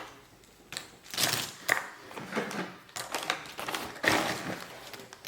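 Cardboard jigsaw puzzle boxes being handled: a series of short rustles, scrapes and light knocks.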